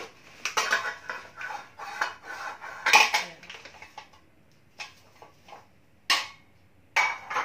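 Two metal muffin pans, a 12-cup and a 6-cup, clattering and clanking against each other as they are handled and stacked, with the loudest clank about three seconds in. A few short crackles of a paper bag being handled near the end.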